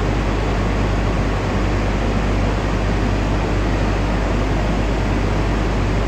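Steady, loud machinery noise of a plant's feedwater heater area: an even hiss with a constant low hum underneath.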